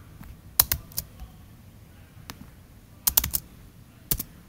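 Chromebook keyboard keys clicking a handful of times, single presses and a quick run of about four about three seconds in: keyboard shortcuts being pressed to copy a command and paste it into the terminal.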